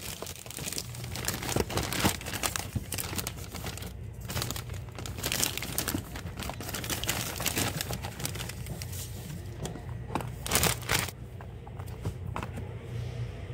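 Crinkling and crackling handling noise: irregular rustles and crackles, louder about ten and a half seconds in, over a low steady hum.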